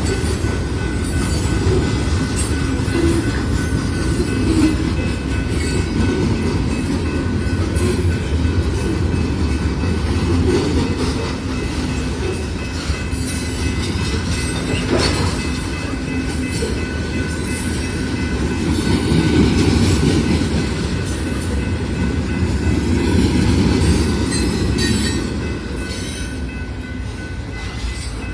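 Freight cars of a Norfolk Southern mixed freight train rolling past: a steady rumble of steel wheels on the rails, with one sharp bang about halfway through.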